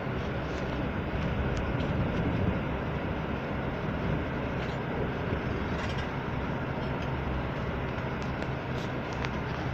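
Steady rumble of a moving passenger vehicle heard from inside its cabin, with a few faint clicks and rattles.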